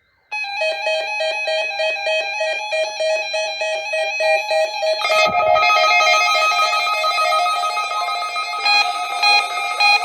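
Several weather alert radios sounding their alarms together, set off by a required weekly test: rapid electronic beeping starts abruptly, a second radio's steadier tone joins about five seconds in, and more beeping patterns are added near the end.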